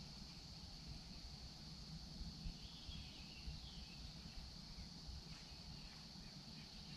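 Faint outdoor ambience: a steady high-pitched insect drone over a low rumble, with a few faint chirps near the middle.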